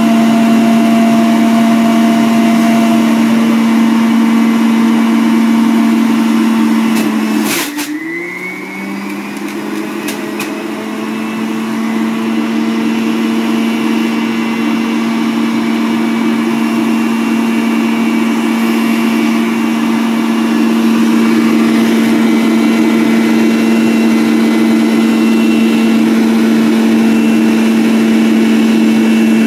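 Electric centrifugal juicer's motor running at speed with a steady loud hum and whir. About seven seconds in a sharp click comes, the motor dips in pitch and level, then winds back up to speed over a couple of seconds.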